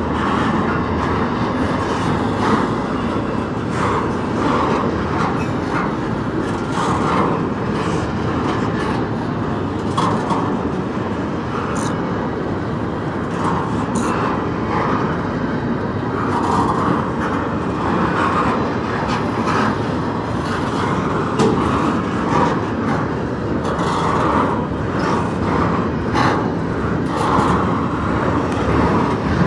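Double-stack intermodal container cars of a freight train rolling past close by: a steady rumble of steel wheels on the rails, with occasional sharp clanks.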